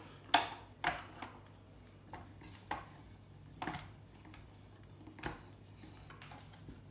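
Screwdrivers clicking and scraping against the metal parts of a circuit board while aluminium pieces are pried off it: a handful of sharp, separate metallic clicks, the loudest about a third of a second in.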